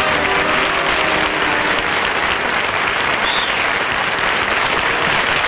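Studio audience applauding steadily, with the last of the band's theme music dying away in the first moment.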